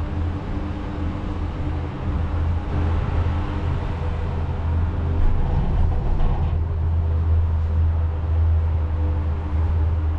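Disney Skyliner gondola cabin running along its cable, heard from inside the cabin: a steady low hum with a few faint steady tones above it.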